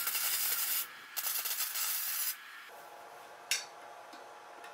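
Wire-feed welder arc crackling as steel tubing is tack-welded, in two bursts of about a second each, then one short burst about three and a half seconds in.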